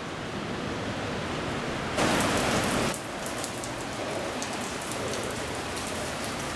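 Heavy rain falling, a steady hiss, with a louder rush lasting about a second starting about two seconds in.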